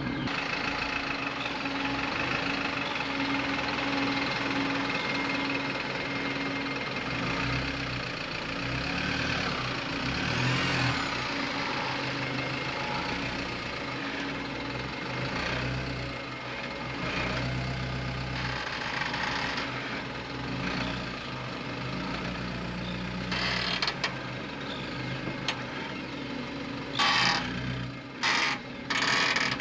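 Isuzu NPS truck's diesel engine running under load as it creeps forward towing an off-road caravan. A few short, loud bursts of noise come near the end.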